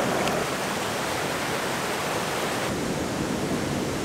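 Shallow stream flowing over pebbles, a steady wash of water. About two-thirds of the way through, its upper hiss drops away and it becomes softer.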